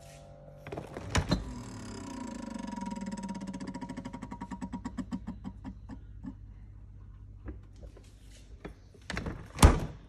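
Samsung French-door refrigerator door pulled open with a thunk about a second in, followed by a rapid ticking over a falling hum that slows and fades away over several seconds. Near the end the door is pushed shut with a loud thump.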